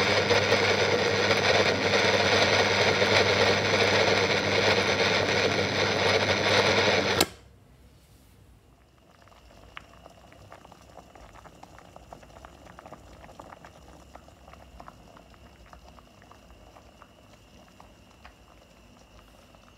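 An electric kitchen appliance motor runs with a steady hum and cuts off suddenly about seven seconds in. After that, a pot of water on an electric hob crackles and ticks faintly as it comes to the boil, under a faint steady high whine.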